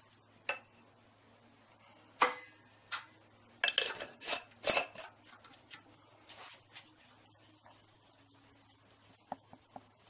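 A glass jar with its lid being handled on a table: sharp clinks and knocks, loudest in a cluster around the middle, then softer rustling and small clicks as the jar is turned in the hands to mix the powdered ore and flux inside.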